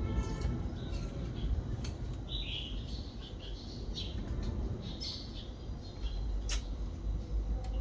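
Birds chirping in short calls, over a steady low rumble, with a sharp click about six and a half seconds in.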